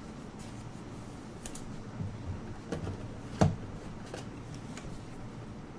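Basketball trading cards being handled and flipped through, with scattered light clicks and one sharper tap about three and a half seconds in, over a low steady hum.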